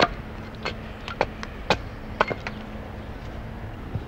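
A hatchet chopping into a poplar-wood clog blank held on a chopping block, notching it to rough out the clog's shape. A run of sharp chops comes about two a second and stops about two and a half seconds in, over a low steady hum.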